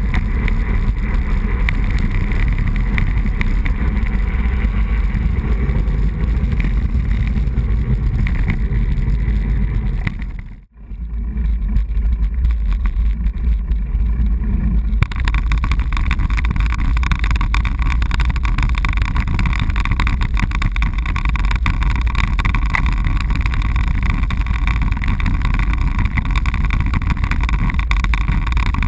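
Steady low rumble of wind and road noise on a bicycle-mounted camera while riding. It drops out briefly about ten seconds in, and from about fifteen seconds, with the bike on cobblestones, the noise changes character.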